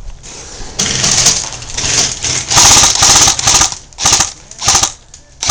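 Airsoft electric gun firing on full auto: a long rattle of rapid shots lasting about three seconds, then three short bursts near the end.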